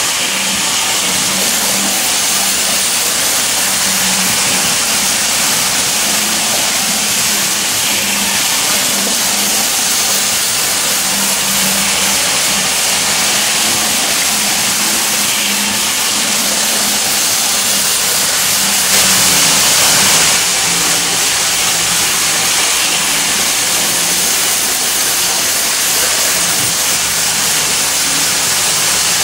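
Three-rail toy electric trains running on tinplate track: a steady whirring hiss from the motors and wheels, with a low hum, swelling slightly about two-thirds of the way through.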